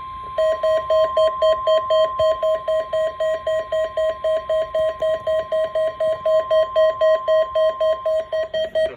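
NOAA Weather Radio's steady 1050 Hz warning alarm tone, with the alert alarms of Midland weather radios beeping fast over it, about four beeps a second. This signals the activation test of the weather radio warning alarm. The steady tone stops near the end while the beeping goes on.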